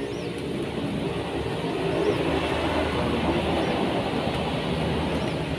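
Steady mechanical rumble with a low drone, like a passing motor vehicle. A faint high chirp repeats every second and a half or so.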